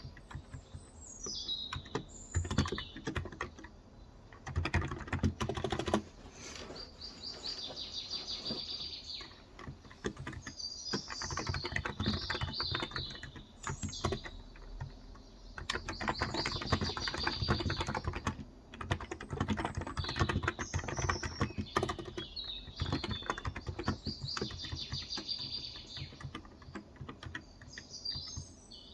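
Typing on a Cox Endeavor electro-capacitive 35 g tenkeyless keyboard: quick runs of keystrokes broken by short pauses. Small birds chirp and trill in the background.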